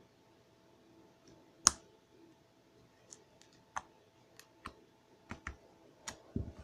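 Homemade glue slime being dropped and pressed on a tabletop, giving a series of sharp sticky clicks and pops, the loudest about a second and a half in. A dull thud comes near the end.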